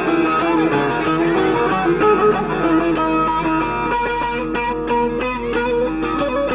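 Saz (bağlama) music: a melody plucked on the long-necked lute, running on without a break.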